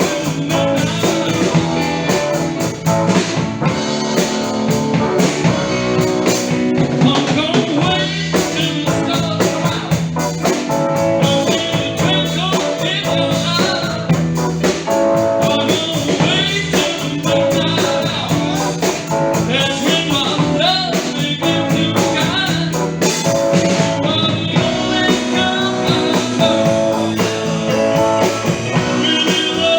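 Live band playing a blues-rock number, with guitar and drum kit at a steady beat.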